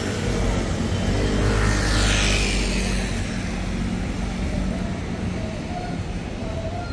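Busy city street ambience: a steady low traffic rumble, with a vehicle passing and its hiss falling in pitch about two seconds in.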